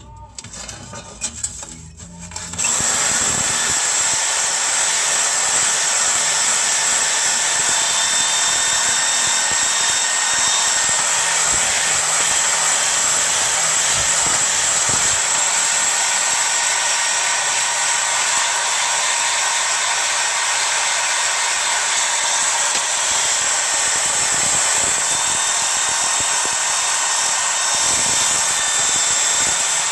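Power drill spinning a wire brush against a baking pan, scrubbing off baked-on grime: a steady whirring scrape that starts about two and a half seconds in, after a few short knocks.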